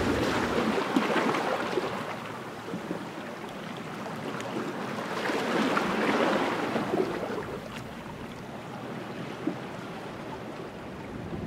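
Sea waves washing onto a shore, a rushing surf sound that swells about a second in and again around the middle, then eases off.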